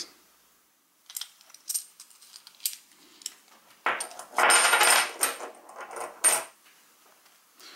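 Silver Franklin half dollars clinking against each other as they are handled: a few light clicks, then a dense run of clinking with a high ringing from about four seconds in, lasting about two and a half seconds.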